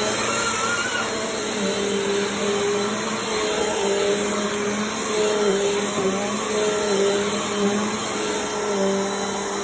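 Vacuum cleaner running steadily, its motor hum dipping briefly in pitch now and then.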